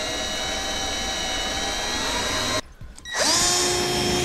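Cordless drill running under load in two bursts as it drives wood screws into 2x4 wooden stringers. The first run lasts nearly three seconds and rises a little in pitch at the end. After a short pause the drill spins up again and runs steady.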